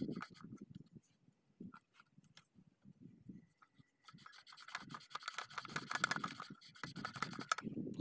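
Hand scrubbing and scraping over the copper slip rings of a center pivot irrigation collector ring while cleaning it: a few light clicks, then about four seconds in a dense scratching rub that lasts some three seconds and stops.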